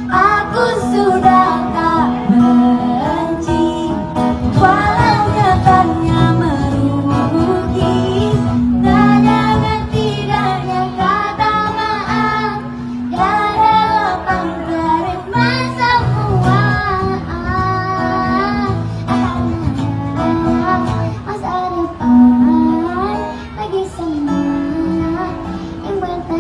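A young girl and a woman singing a song together into microphones, accompanied by an acoustic guitar.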